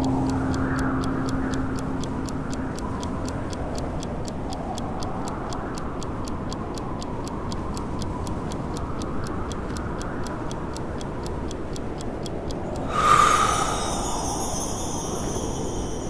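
Snowstorm wind rushing steadily under a fast, even timer ticking of several ticks a second, counting through the breath hold. About thirteen seconds in the ticking stops and a bright bell-like tone rings out and fades, marking the end of the hold.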